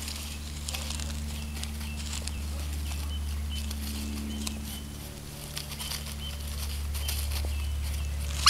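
Asian small-clawed otters rustling and scrabbling through dry leaf litter, with short high chirps and a loud shrill squeak near the end, over a steady low hum.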